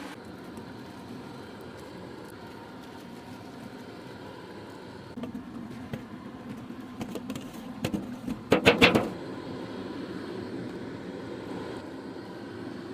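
Ciba chili paste sizzling in hot butter in a wok as it is stir-fried, with the spatula scraping and knocking against the wok; the strokes get busier from about five seconds in and are loudest in a quick cluster about eight and a half seconds in.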